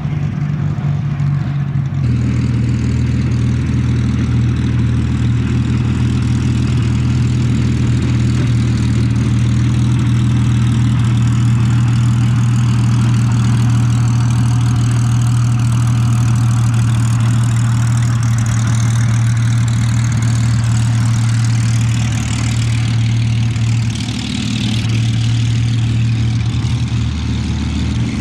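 Rolls-Royce Merlin III V12 engine and propeller of a Hawker Hurricane Mk.I running at low power as the fighter taxis on the ground, a steady low drone. The note shifts about two seconds in and dips briefly near the end.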